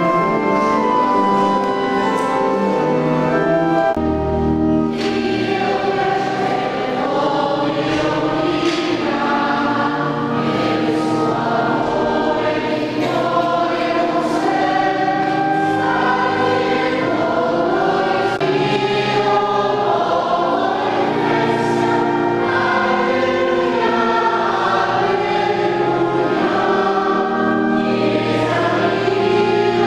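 Church choir singing a hymn. The voices come in about four seconds in, after held instrumental chords.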